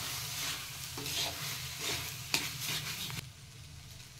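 Metal spatula scraping and stirring rice through sauce in a hot metal kadhai, with sizzling under it and a scrape roughly once a second. A little after three seconds in the stirring stops and the sound drops to a much quieter level.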